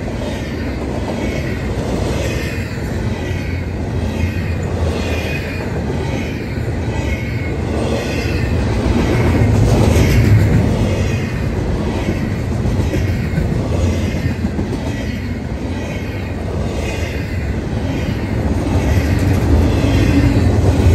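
Double-stack intermodal container train rolling past: a steady rumble of steel wheels on rail with a repeating clatter as the wheelsets pass. It swells louder about halfway through and again near the end.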